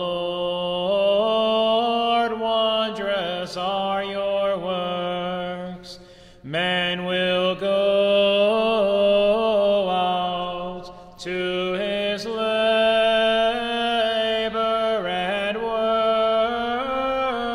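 A single voice chanting psalm verses in English on a near-monotone recitation tone, holding each note with small steps in pitch, with brief pauses for breath about six and eleven seconds in.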